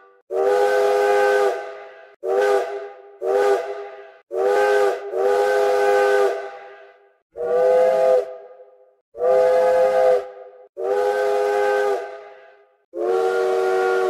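Steam locomotive chime whistle blown in about nine blasts, some short and some held for over a second. Each blast is a chord of several tones over a hiss of steam, and the pitch sags slightly as each blast dies away.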